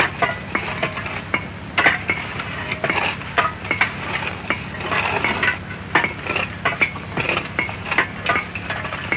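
Irregular clinks and knocks of pickaxes and digging tools on stony ground, over the steady low hum and crackle of an old film soundtrack.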